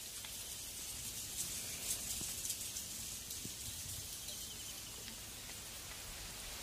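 Quiet outdoor ambience: a steady high hiss with a low rumble and a few faint ticks and knocks.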